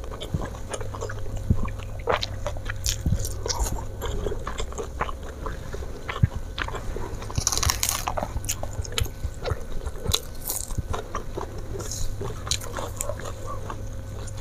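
Close-miked eating sounds: chewing and crunching of fried flatfish and rice, with many small mouth clicks and smacks. About halfway through comes a short rustle of raw lettuce leaves being picked up.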